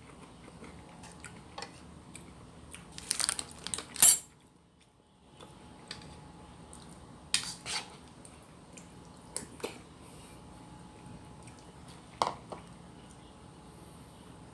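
Eating utensils clinking against a bowl or plate during a meal of rice and noodles. The clinks are scattered, with a quick cluster about three to four seconds in that ends in the loudest one, and then single clinks every few seconds.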